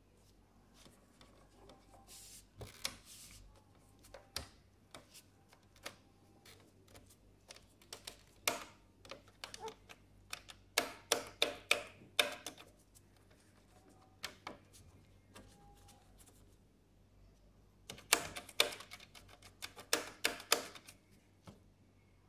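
Mechanical channel-selector push buttons on an old National mini TV being pressed, clicking and clacking. There are a few scattered clicks at first, then two bursts of rapid clicking, one around the middle and one near the end.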